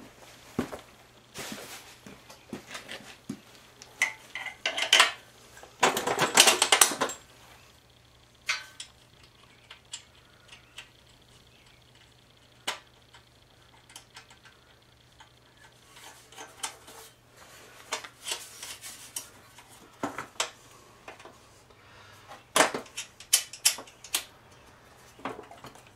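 Scattered metal clinks, clicks and scrapes of bolts, nuts and washers being handled and threaded on by hand while fastening a pressure-washer pump to its engine mount, with a longer scraping rustle about six seconds in and a quick run of clicks near the end.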